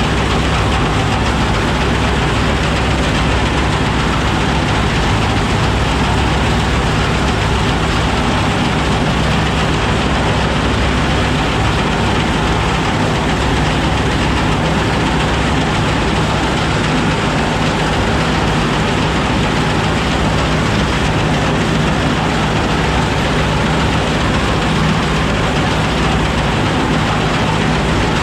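Oliver 7300 combine running with a steady, unbroken machine drone and a low hum.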